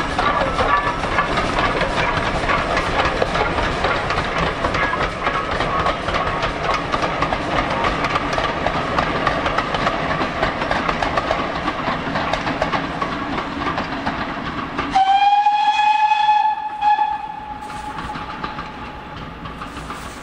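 GWR small prairie tank steam locomotive hauling coaches past: a steady working rumble and clatter with a fast even beat. About 15 seconds in, a steam whistle blows one steady note for about two and a half seconds, the loudest sound here. The train then fades as it draws away.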